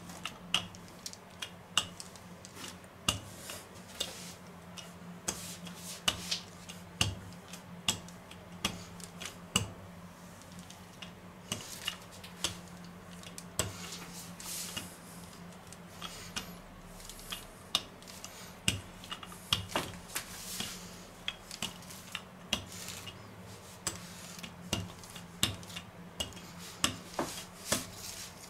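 Wooden rolling pin rolling out pastry dough on baking paper, with irregular light knocks and clicks as the pin is pushed back and forth, over a low steady hum.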